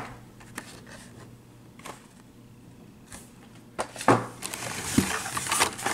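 Hot Wheels cars in cardboard-and-plastic blister packs being handled and pulled from a cardboard case. There are a few faint clicks at first, then louder rustling and knocking of the packaging for the last two seconds.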